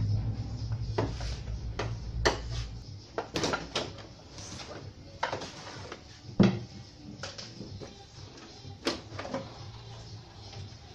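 Scattered plastic knocks and clatters from handling and lifting off the back cover of a flat CRT television, the loudest about six and a half seconds in. A low hum dies away about three seconds in.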